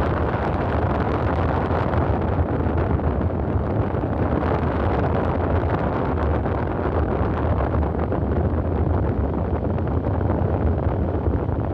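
Steady traffic noise from cars, vans and trucks moving along a multi-lane highway, a constant deep rumble with no breaks.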